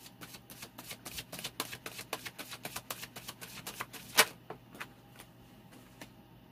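Tarot cards being shuffled by hand: a rapid patter of card clicks for about four seconds, then one loud snap and a few scattered clicks.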